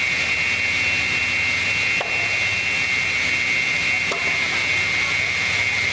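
Multi-blade rip saw machine running, its circular blades and motors giving a steady high whine over a low hum.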